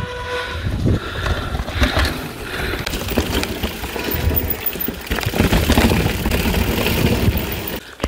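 Mountain bike rolling over a rough dirt trail: wind rumbling on the camera microphone with the irregular rattle and clatter of the bike over roots and stones. It cuts off just before the end.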